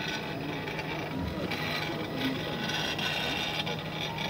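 Diamond-tipped head of a CNC impact etching machine hammering rapidly on polished black granite as it engraves a photo: a steady, dense stream of fast taps.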